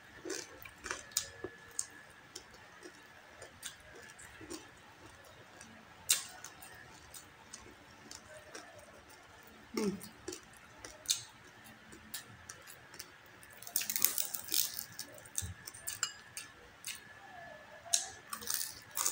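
Close-up eating sounds: chewing and mouth clicks as rice and crispy deep-fried pork knuckle are eaten by hand, with a dense run of crunching a little past two-thirds of the way through. A faint steady whine sits underneath.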